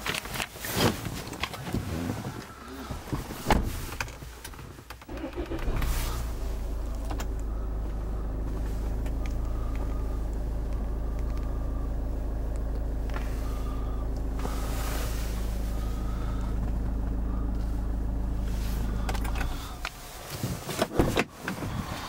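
Range Rover Evoque engine starting about six seconds in and then idling with a steady low hum, heard from inside the cabin. The hum stops about twenty seconds in. Clicks and knocks from handling the cabin controls come before and after it.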